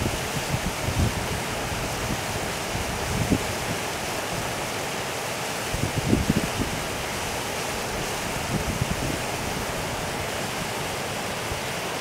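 Shallow stream water flowing steadily over a sandy, pebbly riverbed, a continuous babbling rush. A few brief low gusts of wind buffet the microphone.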